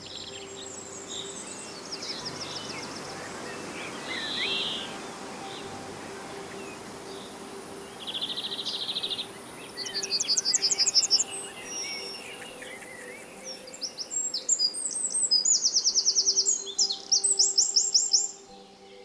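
Forest dawn-chorus-style ambience: several songbirds singing at once, with high, fast repeated trills and chirps that grow busier in the second half, over a steady even hiss of the woods. Faint steady low tones sit underneath.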